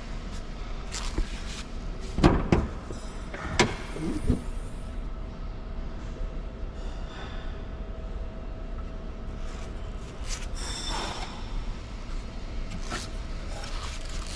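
Workshop sounds: a steady low hum, with a quick run of loud knocks and bangs about two to four seconds in and a few lighter knocks and scrapes later.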